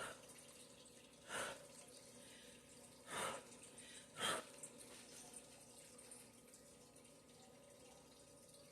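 Short puffs of breath blown onto wet poured acrylic paint to spread it, four brief puffs in the first half and then only faint room hiss.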